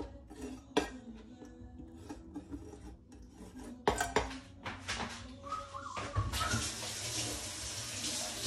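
Kitchen knife, dishes and utensils clinking and knocking in scattered strikes, then a steady hiss from about six seconds in.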